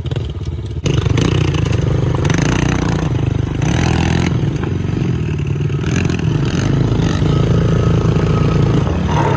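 Small single-cylinder four-stroke pit bike engines running under way on a ride, the nearest a Yamaha TTR110 carrying the microphone, with rushing wind noise. The sound jumps louder a little under a second in as the bike speeds up.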